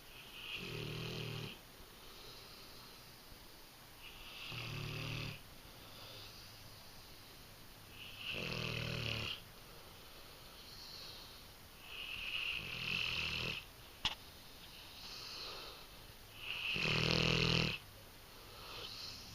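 English Mastiff snoring in deep sleep: five loud snores about every four seconds, each lasting about a second with a low rattle, and softer breaths between them. The last snore is the loudest. A brief sharp click comes just after the fourth.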